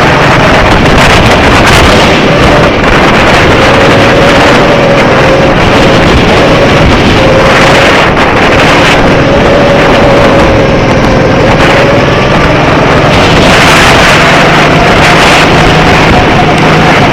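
Go-kart running at speed, a steady whine that drifts slightly up and down in pitch, under loud wind buffeting on the microphone.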